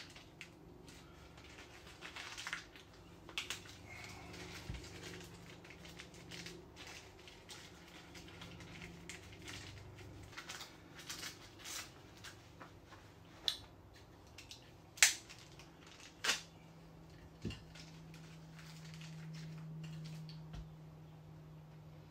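Scattered small clicks, taps and rustles of hands handling a small cartridge fuse at an open microwave, with a few sharper clicks past the middle. A faint steady low hum underneath swells a little near the end.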